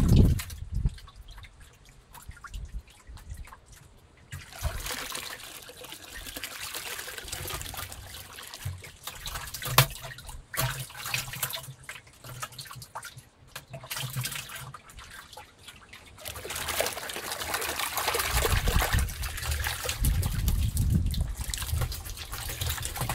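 Water trickling and splashing in a plastic bucket of carp and wels catfish fry as the water is poured off. Faint for the first few seconds, then steadier, and louder in the last third.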